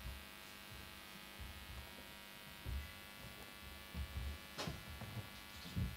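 Steady electrical mains hum with a buzz on the recording, broken by a few soft low thumps and one sharp click about four and a half seconds in.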